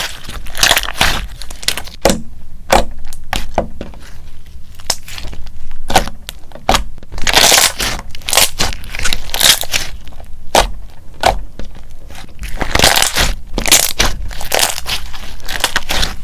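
Clear slime being pressed and stretched by fingers, making irregular sticky crackles, clicks and squelches as it grips and pulls away from the skin.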